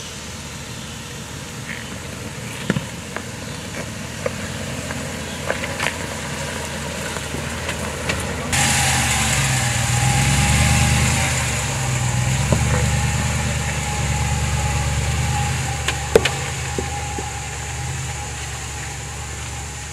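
Jeep Wagoneer SUV crawling over loose rocks, its engine running at low revs, with scattered clicks and knocks from stones under the tyres. About eight seconds in, the sound turns suddenly louder and brighter, with a hiss over it and the engine rising and falling.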